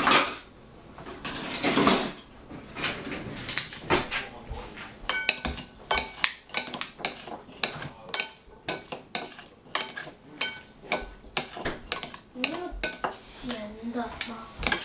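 Plastic salad servers tossing chopped vegetables in a glass bowl, making a rapid run of clicks and clinks against the glass.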